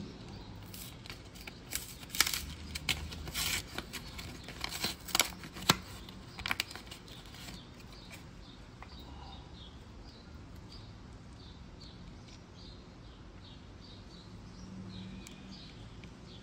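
A run of sharp clicks and light knocks for several seconds, then faint short high chirps repeating about twice a second over a low hum.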